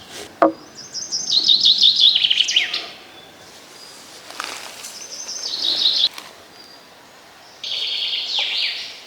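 A songbird singing three phrases, each a fast trill of repeated high notes that steps down in pitch. There is a short knock just before the first phrase.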